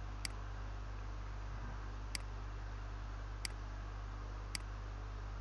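Four sharp computer mouse clicks, one to two seconds apart, over a steady low electrical hum.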